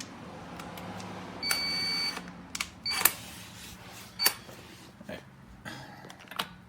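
A few sharp clicks and knocks over a low hum, with a short electronic beep lasting under a second about one and a half seconds in.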